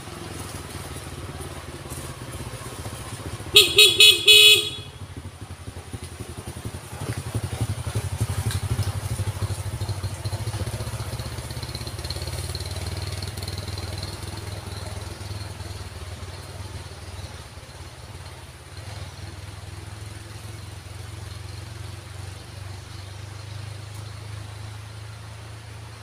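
A vehicle horn sounds about four quick toots in a row a few seconds in, the loudest thing here: a warning honk at the blind bend. After it a motorcycle engine drones as the bike takes the climb, loudest around eight to ten seconds in, then slowly fading.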